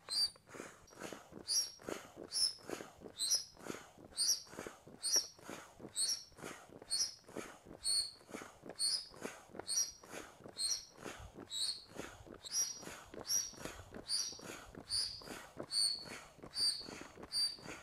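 Foot-operated bellows air pump being stepped on steadily, about two strokes a second, each stroke a rush of air with a short squeaky whistle as it forces air down the hose to inflate the front chamber of an inflatable boat.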